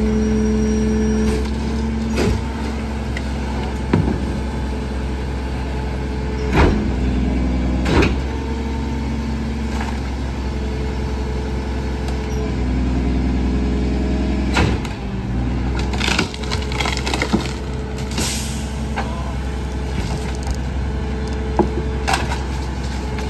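Rear-loader garbage truck's diesel engine running steadily, its hum louder for a few seconds at the start and again about halfway through, while bulk trash lands in the rear hopper with scattered knocks and clatters.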